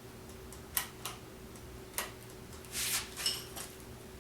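A few sharp clicks and a short rustle of handling on the ATV, over a faint steady hum, with no engine cranking: the Kawasaki KFX 400 gives nothing when he tries to start it.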